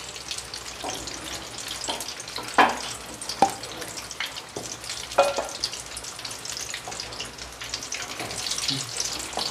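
Samosas deep-frying in hot oil in a kadai, a steady crackling sizzle. A few sharp knocks sound about two and a half, three and a half and five seconds in.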